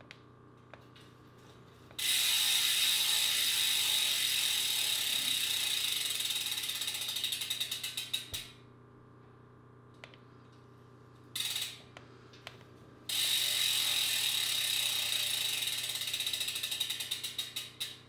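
Rear bicycle hub's freewheel ratcheting as the hand-spun rear wheel coasts. It starts as a fast, even buzz of clicks that slows into separate clicks before stopping. This happens twice, with a short burst between the two spins.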